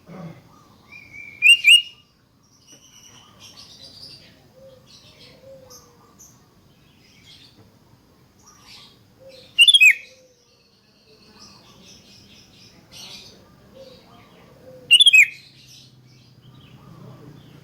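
Sooty-headed bulbul calling: three loud, short, gliding phrases about six seconds apart, with softer chirps in between.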